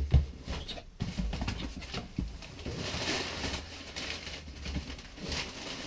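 Crumpled brown packing paper rustling and crackling as it is pulled out of a cardboard shipping box, with the box flaps knocking. Irregular crinkles and clicks, the rustling loudest about halfway through.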